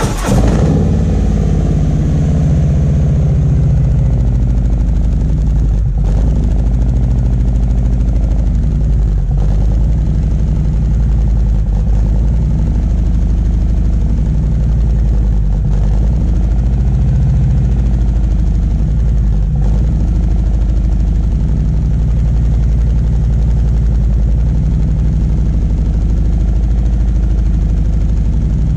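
Harley-Davidson Milwaukee-Eight 114 V-twin idling through a Jackpot 2-into-1 Road and Track exhaust, just started for the first time on a fresh Stage 1 tune. A loud, steady idle whose low note wavers slowly and evenly.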